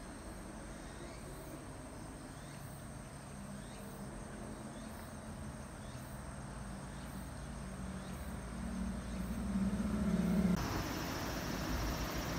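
Outdoor ambience: a steady high insect trill, with a motor vehicle's engine growing louder underneath and loudest about ten seconds in. The sound then changes abruptly to a steady rushing noise.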